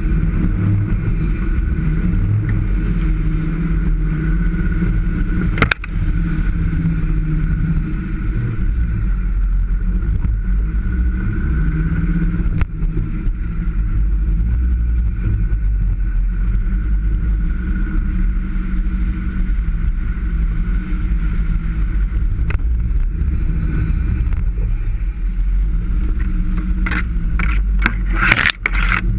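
Land Rover Defender engine running steadily while driving off-road, with a few sharp knocks and a short burst of rattling knocks near the end.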